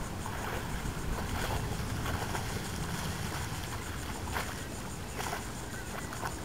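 Boat under way on open water: steady wind and water noise with a motor running, and a few small knocks or splashes.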